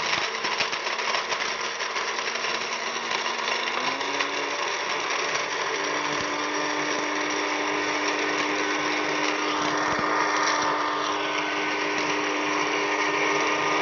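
Electric blender's small grinding jar running at full speed, pulverising dried chilli flakes and salt: a steady motor whine over a grainy hiss of the spinning flakes. The motor's hum steps up slightly in pitch about four seconds in.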